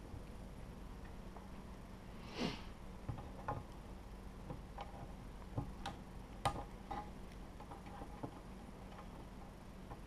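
Scattered light clicks and taps of hands working small 3D printer kit parts and cabling, with one short breathy noise about two and a half seconds in, over a faint steady hum.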